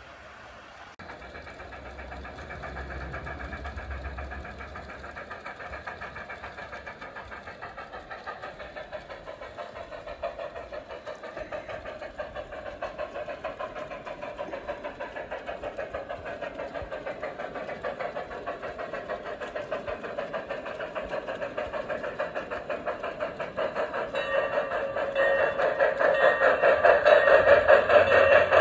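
G-scale model steam locomotive (a streamlined double Hudson Garratt) running with its freight train on garden-railway track. It makes a steady hum with a rapid, even pulsing beat that grows louder as it approaches.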